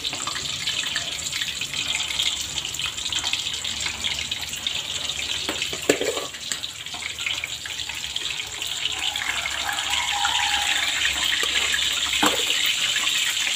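Pre-boiled pork pieces sizzling in hot cooking oil in an aluminium wok: a steady hiss, with a sharp pop about halfway through and another near the end.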